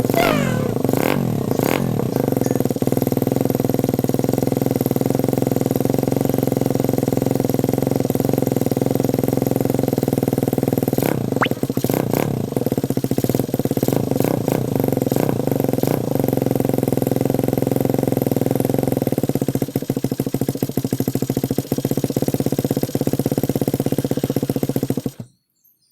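Single-cylinder motorcycle engine idling steadily through a homemade PVC-pipe exhaust, its carburetor on choke, then shutting off abruptly near the end.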